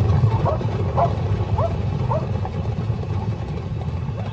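Hyenas calling with short, quick yips, several a second at first and thinning out after about two and a half seconds, over a steady low rumble.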